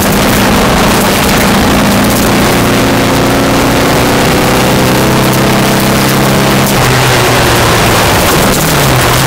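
VW Beetle rally car's air-cooled flat-four engine running hard, heard from inside the car, its pitch climbing slowly and dropping about seven seconds in and again near the end. A steady hiss of tyres on gravel runs underneath.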